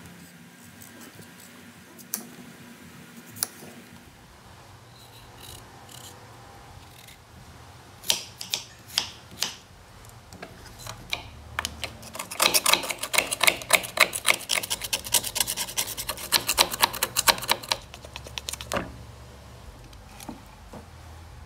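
Kitchen prep clatter of a knife, chayote pieces and a small steel strainer on a wooden cutting board: a few scattered sharp taps, then a dense run of rapid clicking for about five seconds in the middle.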